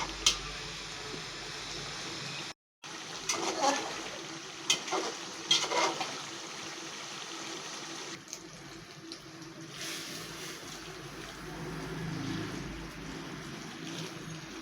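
Cooking in a pot: a few sharp clinks of a utensil against the pan in the first half, then a steady hiss of liquid cooking.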